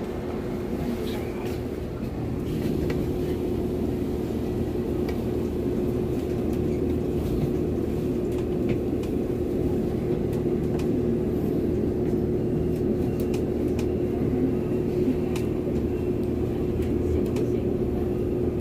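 Running noise of a Taiwan Railway EMU800 electric train heard from inside the carriage: a steady rumble with one steady hum and a few faint clicks, growing a little louder about two and a half seconds in.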